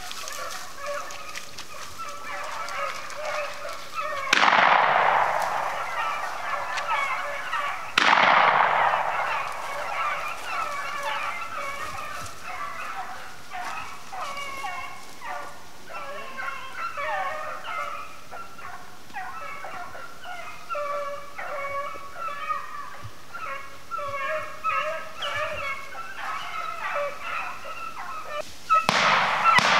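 A pack of beagle hounds baying and yelping steadily while running a rabbit. About 4 and 8 seconds in, two shotgun shots go off, each echoing away over a couple of seconds. Near the end the baying comes louder.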